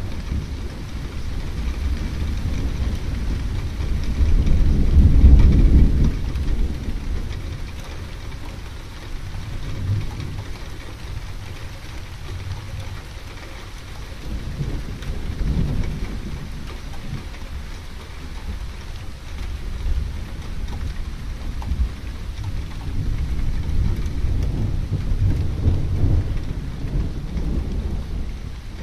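Thunderstorm: steady rain falling, with rolling thunder. The loudest long rumble comes about five seconds in, and weaker rumbles follow several times later.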